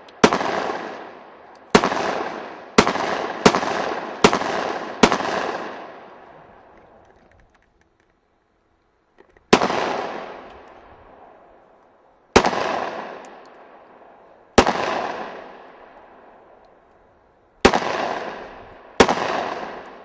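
Glock pistol fired eleven times: six shots in quick succession, a pause of about four seconds, then five more at a slower pace. Each crack echoes and dies away over a second or two.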